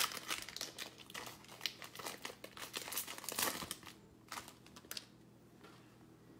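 Crinkling and tearing of a foil trading-card pack wrapper being opened by hand, a dense crackle for about four seconds that thins to a few single crinkles.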